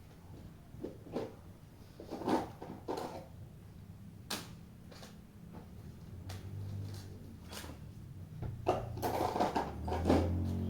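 Scattered clicks and rustles of a boxed drinking bottle's packaging being handled and opened, busier near the end.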